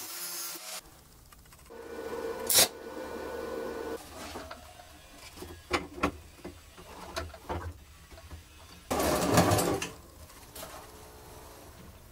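Angle grinder grinding a steel weld, cut off within the first second. Then knocks and clanks of a large angle grinder being handled and fitted onto a steel-framed stand, with a steady hum for about two seconds and a louder noisy burst lasting about a second near nine seconds in.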